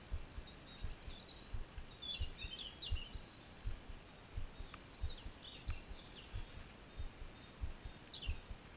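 Small songbirds chirping and singing with short sweeping notes, over many soft low knocks on the microphone.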